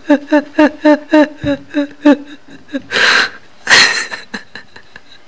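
A person laughing in a quick run of short, evenly pitched "ha" bursts, about four or five a second, followed by two loud breathy gasps around the middle.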